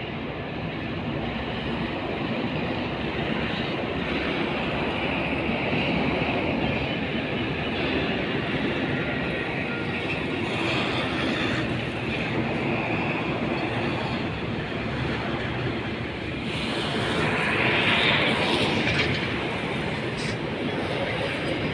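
A vehicle engine running steadily under a wash of road and wind noise. It swells louder with a hiss for a couple of seconds near the end.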